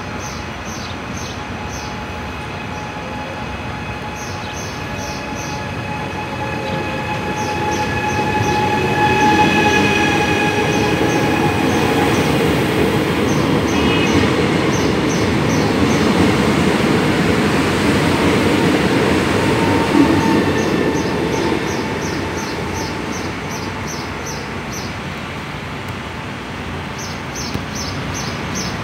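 A Trenitalia Jazz electric multiple unit pulling out of the station: a whine of electric motors over rolling wheel noise. It grows loud as the train runs close by from about a third of the way in, holds there for about ten seconds, then fades as the train moves off down the line.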